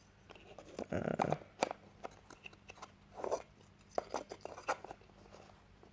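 Scattered small clicks, taps and brief rubbing as the parts of a puzzle box are handled.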